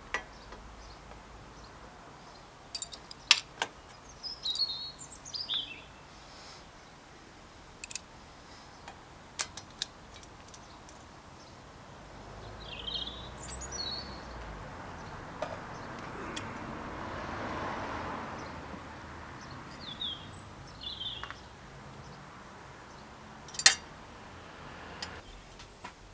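Sharp metal clicks and taps from a crank arm being fitted onto a bicycle's bottom bracket spindle and its bolt worked with a hex key, the loudest click near the end. Birds chirp in short calls several times, and a soft rushing swell rises and fades about two-thirds through.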